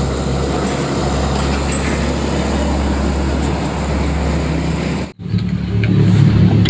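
Steady road-vehicle noise, engine rumble and tyre hiss, that cuts off abruptly about five seconds in.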